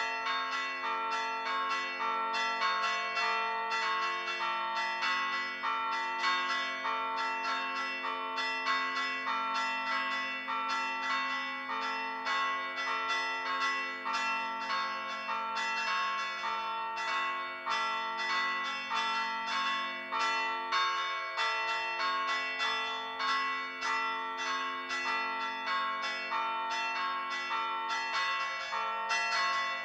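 Stationary church bells hand-chimed in pritrkavanje: the clappers are struck against the bells' rims in quick, steady strokes, several bells ringing together in a repeating rhythmic pattern, each tone sustaining and overlapping the next.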